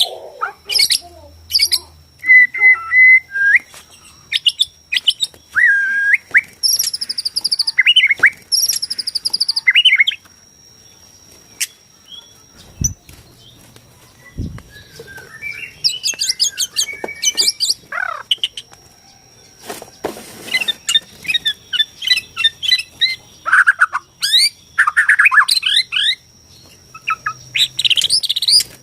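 White-rumped shama (Borneo murai batu) singing in varied bursts of clear whistles, fast trills and rattling chatter, with a lull of a few seconds partway through. A thin steady high whine runs underneath.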